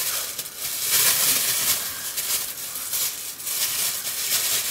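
Thin clear plastic gloves from a hair dye kit crinkling and rustling as they are handled, in a string of uneven crackles.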